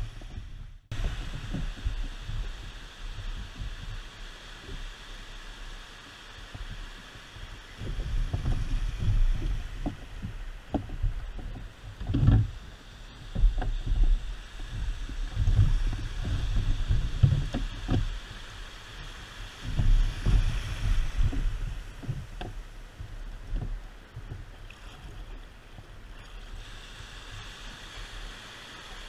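A kayak on the water, with water sounds and wind rumbling on the microphone in uneven gusts over a steady hiss. A few short knocks come about twelve seconds in.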